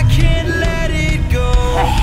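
Background music with a steady beat and a pitched melody line.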